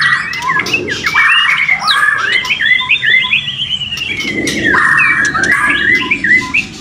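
White-rumped shamas (murai batu) singing: loud, clear whistled notes and a long run of rising-and-falling notes in the middle, mixed with harsh rasping phrases.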